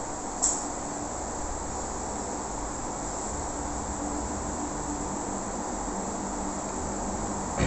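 Steady, even background hiss between recited phrases, with a short click about half a second in.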